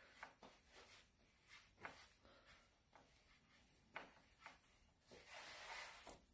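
Near silence, with a few faint taps and a soft rub near the end: hands rolling gnocchi dough on a floured wooden pastry board.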